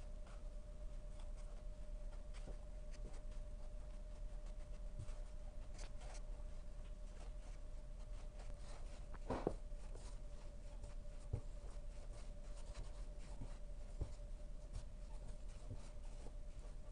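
Wooden spatula scraping and knocking in a plastic tub as flour is mixed into a shaggy bread dough, with a few soft knocks spread through, over a steady hum.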